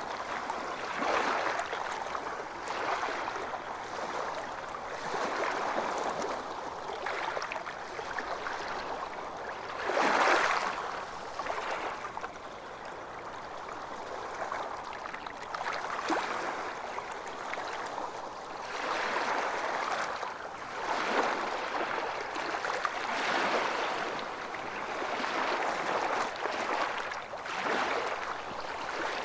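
Calm small waves lapping and sloshing against yacht hulls, in uneven swells every couple of seconds, with one louder splash about ten seconds in.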